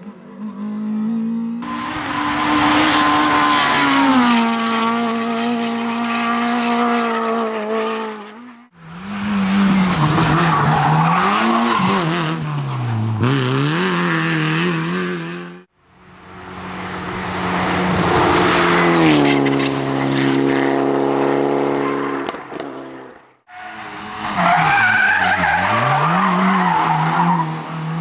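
Rally cars driven hard, in four separate short passages: each engine holds high revs, and the pitch rises and falls with throttle lifts and gear changes, with tyres skidding on the road surface. In the second and last passages the revs swing up and down several times in quick succession.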